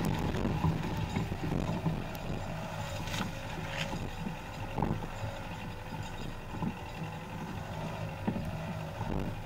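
Skoda Octavia TDI diesel driving slowly over a rough forest dirt track, heard from outside the car beside the front wheel: a steady low engine and tyre rumble with scattered short knocks as the wheel and suspension take bumps.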